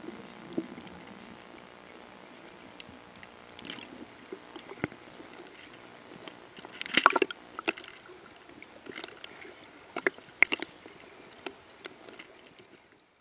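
Water sloshing and splashing against a snorkeler's camera at the waterline, over a steady faint hiss; a cluster of louder splashes comes about seven seconds in, and several sharp splashes follow near the end.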